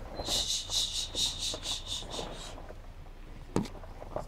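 Insect chirping: a run of about nine high pulses, about four a second, lasting a little over two seconds. A single sharp click follows near the end.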